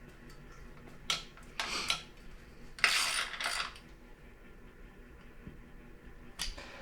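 Metal parts and tools clinking and clattering as they are handled: a sharp click about a second in, two short clattering spells, then quiet with one small click near the end.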